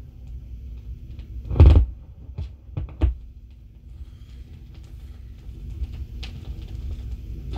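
Low rumble and surface noise from the silent groove between two jingles on a 16-inch transcription record turning at 33 rpm on a Gates CB-500 turntable. There is one loud thump about a second and a half in, then a few smaller clicks.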